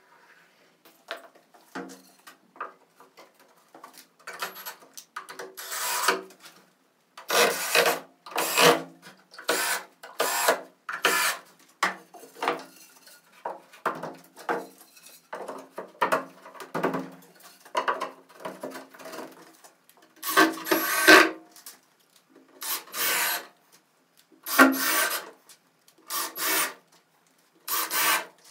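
A hand tool rubbing and scraping across wood in repeated uneven strokes, each about half a second long, with irregular pauses between them.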